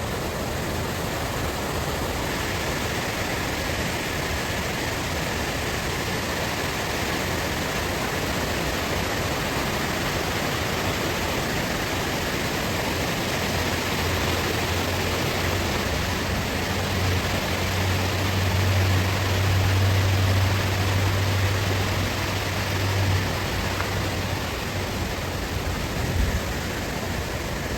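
Rain-swollen creek rushing fast over rocks: a steady hiss of running water. Underneath it, a low rumble swells for several seconds in the middle.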